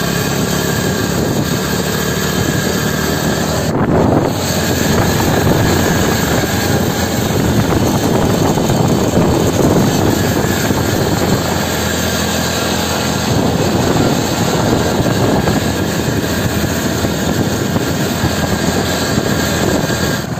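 Motorcycle riding along a road: the engine's steady drone under heavy wind noise on the microphone, with a short break about four seconds in.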